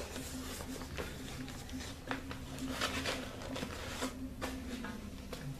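A canvas tote bag being handled and rummaged through: irregular soft rustles and small knocks over a steady low hum.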